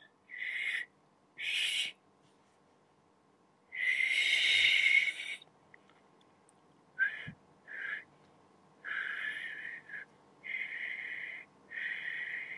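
A learner's attempts at whistling through pursed lips: a string of about eight short, breathy blows, mostly rushing air with a faint whistle tone in it, the longest and loudest lasting about a second and a half around four seconds in. The whistle has a sound but is not loud, the sign of someone who cannot yet whistle cleanly.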